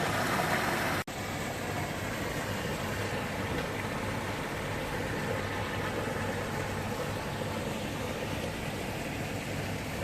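Steady hum of road traffic with a low engine drone. The sound cuts out for an instant about a second in.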